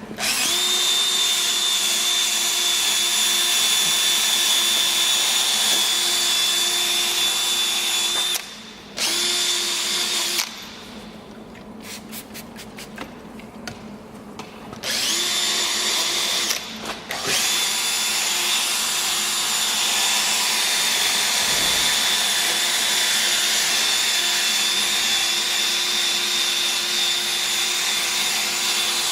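Drill spinning a 3M 3000-grade wet-sanding pad against a plastic headlamp lens, running with a steady whine. It stops briefly about a third of the way in, again for a few seconds in the middle with a quick run of clicks in that pause, and once more just after, then runs on steadily.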